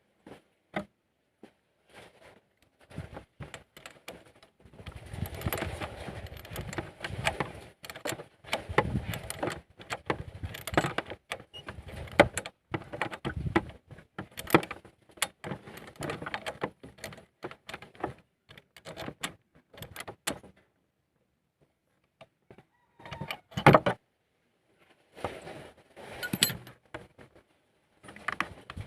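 Metal hand tools clinking, scraping and knocking in hands-on work on a Honda EX5 motorcycle's engine, most likely a plug spanner fitting the spark plug. Irregular clicks and rattles, busiest in the first half, with one louder knock near the end.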